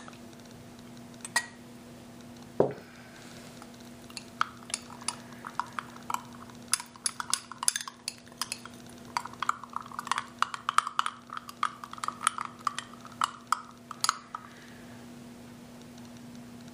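Metal spoon stirring red chutney in a small glass tumbler, clinking against the glass as water is mixed in to thin the thickened chutney. A few separate clinks in the first three seconds, then about ten seconds of quick, continuous clinking that stops a couple of seconds before the end.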